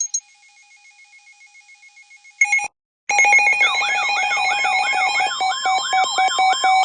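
Weather alert radio alarm going off for a flash flood warning: a loud electronic warbling alarm whose pitch sweeps up and down about twice a second, starting about three seconds in after faint repeating tones, a short loud burst and a brief silence.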